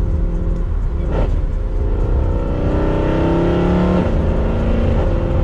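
Mercedes C63 AMG V8 running through catless long-tube headers, X-pipe and OEM rear mufflers. Its note climbs for about a second and a half at low revs, then drops sharply about four seconds in and settles.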